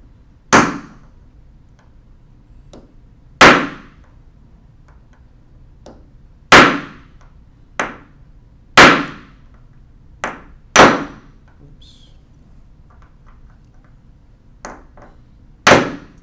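Ball-peen hammer striking a steel pin punch to drive a stuck taper pin out of a part held in a metal jig. There are six hard, sharp blows two to three seconds apart, each ringing briefly, with a few lighter taps between.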